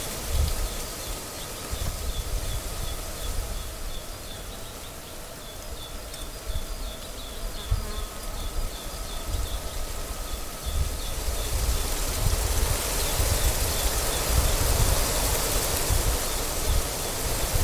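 Wind gusting across the microphone in uneven rumbles, growing stronger and fuller in the second half. Through the first half a faint high chirp repeats several times a second.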